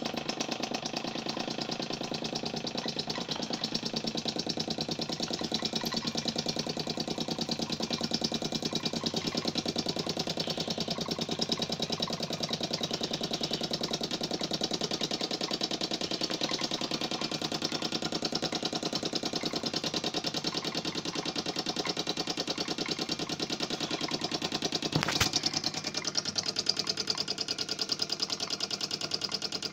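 Handmade model live steam engine with an oscillating (trunnion-mounted) cylinder, running steadily at an even speed: a fast, regular chuffing of exhaust steam with the clatter of its moving parts. Near the end there is one sharp click.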